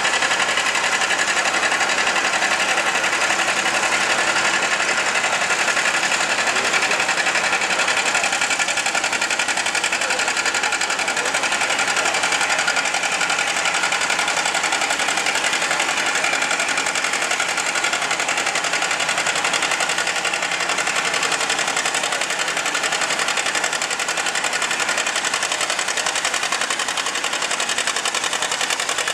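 John Deere 620 two-cylinder tractor engine running steadily at low speed, at the pulling sled.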